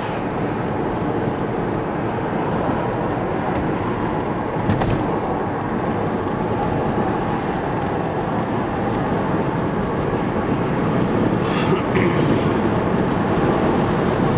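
Steady road and engine noise heard inside a moving car's cabin, with a brief knock about five seconds in.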